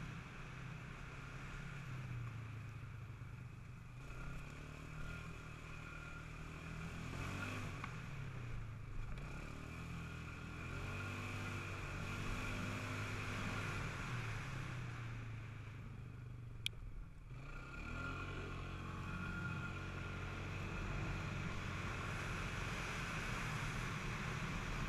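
Polaris Scrambler 500 quad's single-cylinder four-stroke engine running under way, its revs rising and falling repeatedly with the throttle. A single sharp click comes about two-thirds of the way through.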